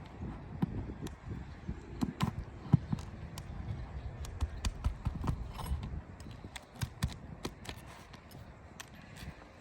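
Irregular knocks, clicks and scraping of hand tools working on asphalt roof shingles, with one sharper knock about three seconds in.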